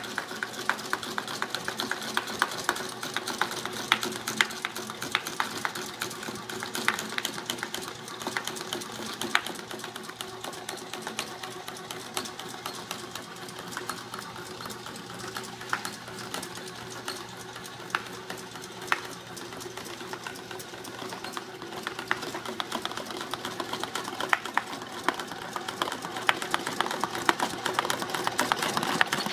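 Vintage Big Shot popcorn maker running, its motor drive shaking a Jiffy Pop foil pan over the heater with a steady mechanical rattle and hum. Popcorn kernels pop inside the pan as its foil swells, and the sound grows louder near the end.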